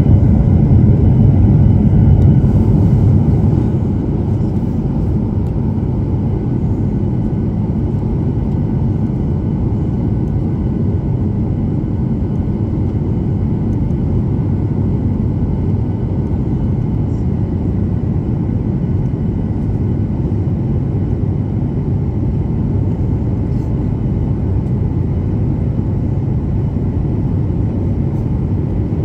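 Airliner cabin noise in flight: a steady low rumble of engines and rushing air, dropping somewhat in level about four seconds in, with faint steady high tones above it.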